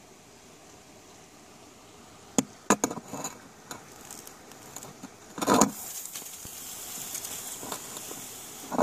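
Camera handling noise: a few sharp clicks and knocks, then a louder scuffing burst about halfway through, over a steady hiss, with another short knock at the very end.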